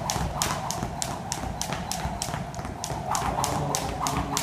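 Skipping rope slapping a wooden gym floor in a steady rhythm, about three times a second, with the light landings of her sneakers.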